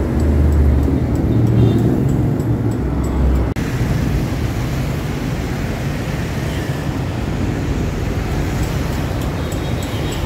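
City street traffic: a steady rumble of vehicle engines and tyres, with an abrupt break and change in the noise about three and a half seconds in.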